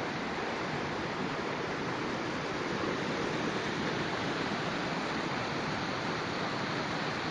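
A big mountain stream rushing over rocks in whitewater, a steady, even rush of water.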